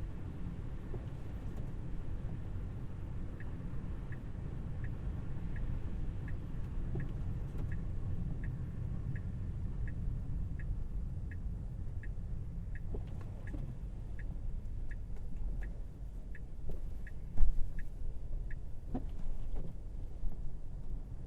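Steady low road and tyre rumble inside a Tesla Model Y's cabin, with the turn-signal indicator ticking about one and a half times a second for some fifteen seconds. A single sharp thump comes near the end, followed by a few lighter knocks.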